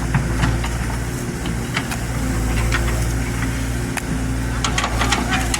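Excavator's diesel engine running steadily, with scattered sharp knocks and clatter from the machine at work.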